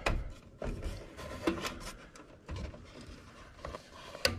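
Light clicks, rattles and knocks of hands working wires at an air handler's blower control board, pushing a spade connector onto a terminal. There are a handful of separate clicks, with a sharper click near the end.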